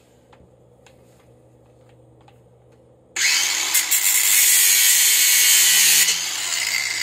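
Angle grinder cutting through a steel suspension coil spring that is still under load. It starts suddenly about three seconds in with a loud, even grinding hiss, and runs a little quieter in the last second. A few light handling clicks come before it.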